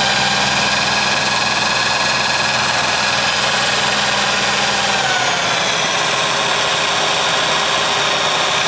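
Skil half-inch corded drill motor driving a homemade electric outboard's lower unit, running steadily with a whine. Its pitch dips slightly and a low hum drops away about five seconds in.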